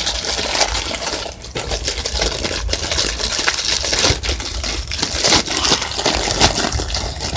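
Purple slime being squished and stretched by hand, a steady run of small clicks and crackles.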